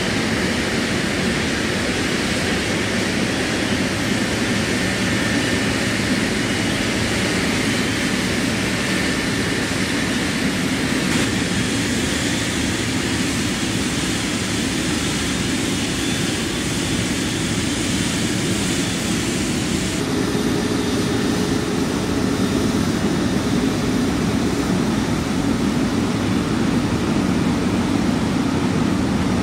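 Boeing 777-200LR's GE90 turbofan engines running at taxi power: a steady jet rush with a faint whine. About 20 s in the sound shifts and a lower steady tone comes in.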